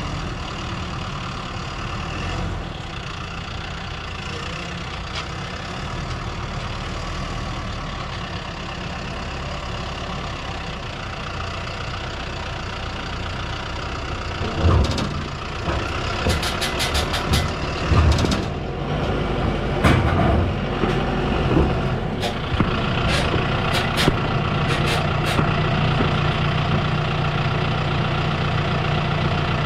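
John Deere tractor's diesel engine running as the tractor drives up onto a wooden-deck flatbed trailer, growing louder as it comes closer. From about halfway, a series of sharp clanks and knocks as the tractor climbs onto the trailer.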